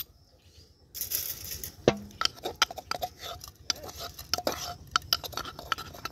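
A metal utensil scraping and tapping against a clay mortar and a glazed terracotta dish as crushed green chillies are knocked out into the dish. There is a short scrape about a second in, then a string of light clinks and taps.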